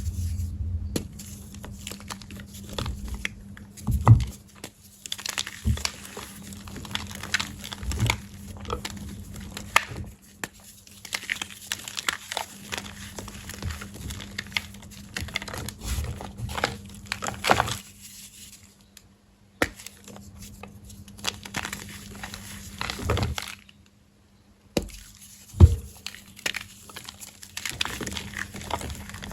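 Soft, crunchy gym chalk blocks being crushed, giving a run of irregular crunches and crackly crumbling with a few sharp loud cracks. The crushing breaks off briefly twice. A faint steady hum runs underneath.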